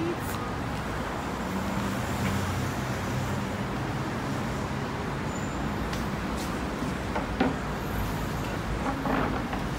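Steady street traffic noise, a low rumble of passing cars and buses, with a brief knock about seven seconds in.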